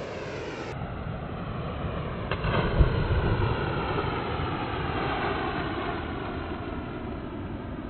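Rushing river water and wind on the microphone, with a splash about three seconds in as a person drops from a bridge into the river.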